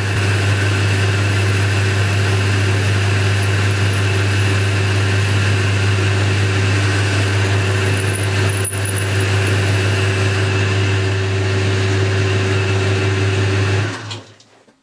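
Boxford metal lathe running steadily with a constant motor and drive hum, then switched off near the end, its sound dying away within about a second.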